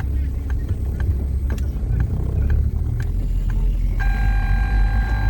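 Car engine and road rumble inside the cabin, with a light regular clicking about twice a second. About four seconds in, music starts suddenly on the car's sound system.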